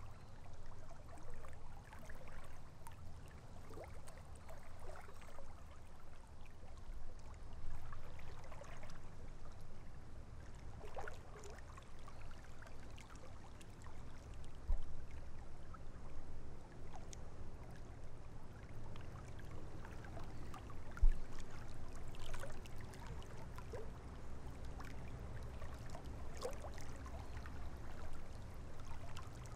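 River water trickling and lapping around a half-submerged log, over a low steady rumble. A single low thump about two-thirds of the way through.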